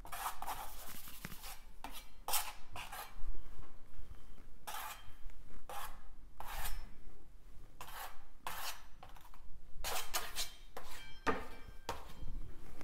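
A broad paintbrush scraping across a stretched canvas as brown paint is worked over black, in a run of short rasping strokes at an uneven pace of about one a second.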